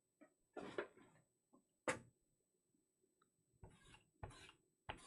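Quiet handling noise from a cardboard card box and its packs: a few scattered soft taps and short rustles.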